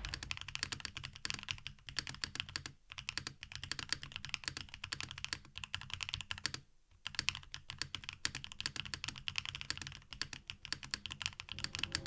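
Fast, continuous typing on a Qwertykeys QK65v2 Classic 65% keyboard fitted with its hall effect module and Qwertykeys' own pre-lubed hall effect switches, a dense run of key clacks broken by two short pauses, about three and seven seconds in.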